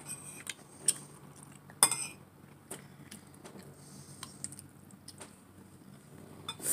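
Cutlery clinking against dishes while eating: scattered sharp clicks about once a second, the loudest about two seconds in.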